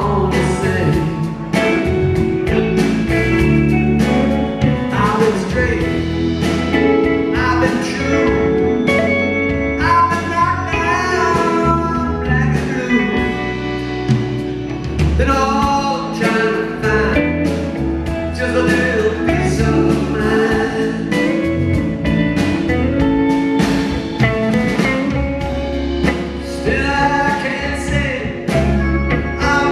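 A live rock band plays through a theatre PA: electric guitars, bass and drums, with a male lead singer over them.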